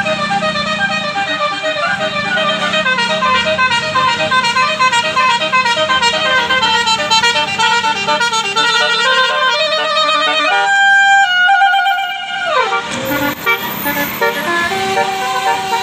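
A bus's Basuri telolet musical air horn playing a quick melody over the bus engine, then holding a long chord about ten seconds in that slides down in pitch and dies out, with a few more held notes near the end.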